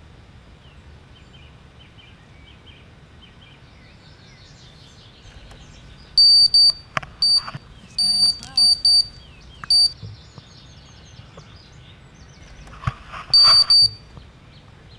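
An electronic beeper sounding a run of short, steady, high-pitched beeps, starting about six seconds in and coming again near the end, with a couple of sharp clicks. Faint birdsong plays underneath.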